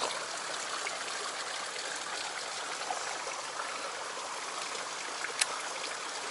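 A stream running over rocks: a steady, even rush of flowing water, with one sharp tick a little over five seconds in.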